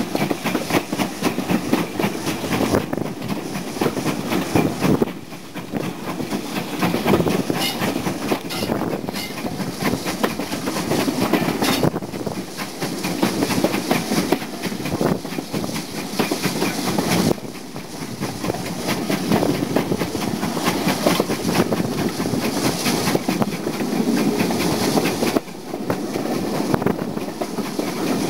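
Steam-hauled heritage train heard from a passenger coach running along the line: a steady rumble and clatter of wheels on the rails, with rushing air. The loudness dips briefly a few times.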